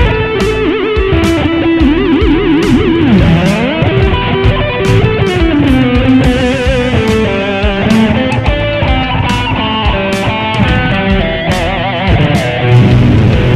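Electric guitar played lead through a Mooer GE150 multi-effects processor: single-note phrases with string bends and wide vibrato, and a sliding run down in pitch about halfway through, over a steady drum beat.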